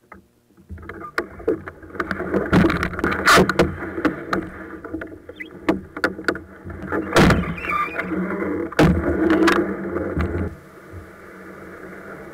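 Canoe hull bumping and scraping as the paddler climbs about in it and shoves it along a shallow creek with the paddle. There are many sharp knocks and thuds on the hull, the loudest three a couple of seconds apart. It turns quieter for the last two seconds.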